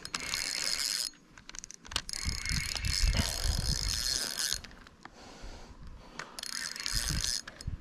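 Fishing reel's ratchet buzzing in three bursts, a short one at the start, a longer one in the middle and a short one near the end, while a hooked salmon is being played.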